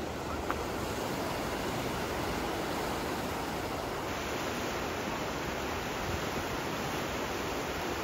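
River water rushing steadily, an even, unbroken roar of flowing water, with a brief click about half a second in.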